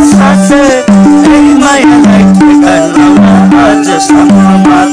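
Nepali Gaine folk song played live: a madal hand drum beats a steady rhythm that alternates between two pitches, under a bowed sarangi and a man's singing.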